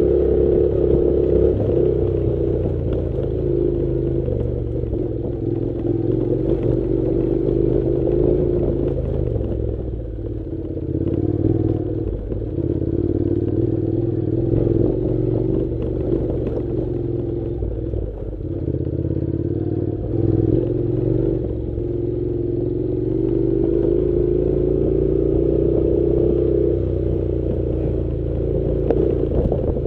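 Honda NC700 parallel-twin motorcycle engine running steadily while the bike is ridden along a dirt track, its pitch drifting gently up and down with the throttle, with an occasional knock from the rough ground.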